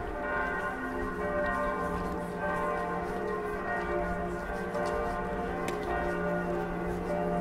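Church bells ringing: several bells sound together in a long, overlapping peal, their tones hanging on and fading in and out.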